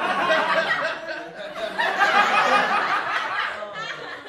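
Sitcom laugh track: a studio audience laughing together, swelling to a louder burst about two seconds in, then dying down.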